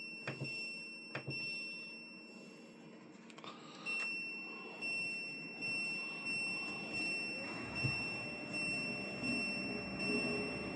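Button clicks on a portable air conditioner's panel, then a high electronic tone pulsing a bit faster than once a second as the unit powers up. In the second half the air conditioner's fan starts running underneath it.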